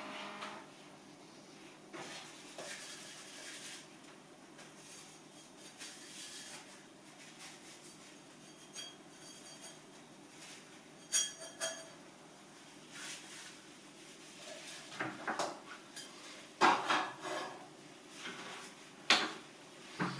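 Scattered clinks, clicks and knocks of small hard objects being handled and set down, the loudest cluster about three-quarters of the way through.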